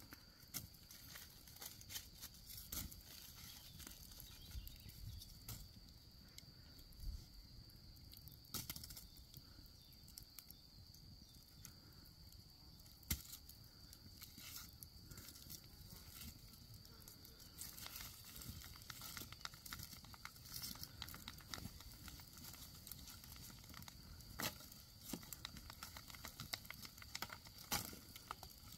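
Wood campfire crackling, with irregular sharp pops, a few of them louder, over a faint steady high-pitched tone.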